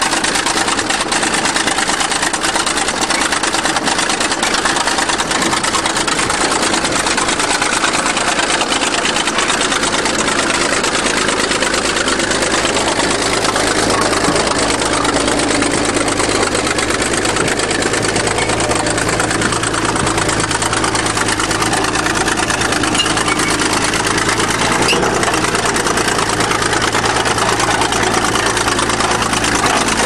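Engine of a 20-ton crawler bulldozer running steadily as the machine backs over a car.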